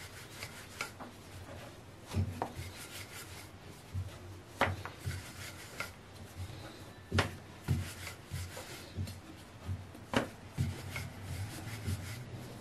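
Wooden rolling pin rolling out a stuffed paratha on a stone rolling board: repeated rubbing strokes with irregular low knocks, a few of them sharp clicks.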